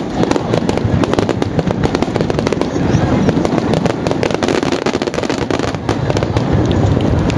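A loud, unbroken fireworks barrage: many aerial shells burst in rapid, overlapping succession, with booms and continuous crackling and no pause between them.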